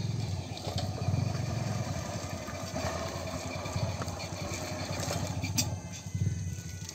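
Small commuter motorcycle's single-cylinder engine running steadily at low revs while the bike is ridden slowly.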